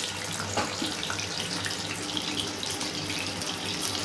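Raw plantain slices deep-frying in hot oil: a steady sizzle with scattered small pops.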